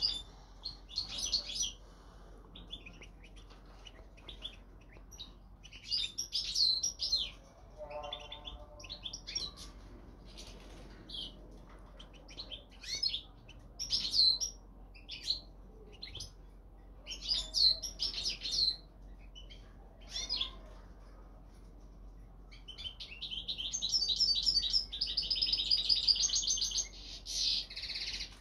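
European goldfinch calling with short, high twittering chirps, then breaking into a rapid, continuous twittering song for about five seconds near the end.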